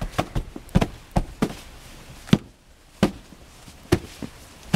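Gloved hands slapping and patting snow to pack it down, a run of about ten sharp, irregular pats.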